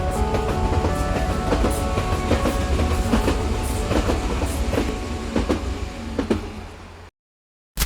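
A train running on track: a steady low rumble with irregular clattering clicks, fading out about seven seconds in.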